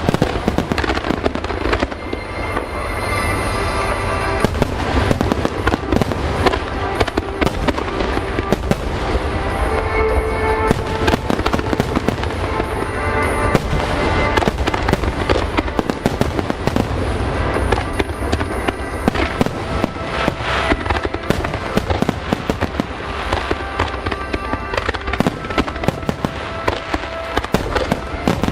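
A dense, continuous barrage of fireworks bursts and crackles, with music playing underneath.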